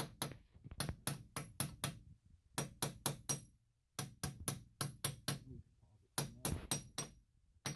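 Hammer tapping on metal at a car's front wheel hub: quick runs of sharp strikes, about four a second, in several bursts with short pauses, each strike with a brief metallic ring.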